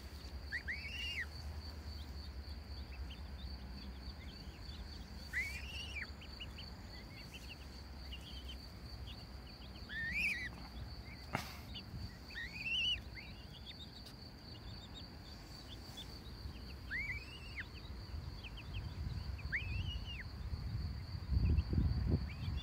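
Goslings peeping: single short rising-and-falling peeps every few seconds, over a steady high insect trill. A low rumble of handling noise near the end.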